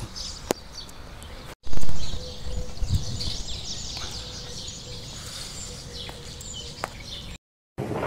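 Many small caged songbirds chirping and twittering together, with a faint steady hum under them. A short loud noise breaks in just before two seconds in.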